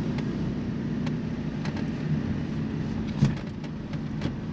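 Diesel Fiat Punto driving, heard from inside the cabin: a steady low engine and road drone with a few light clicks.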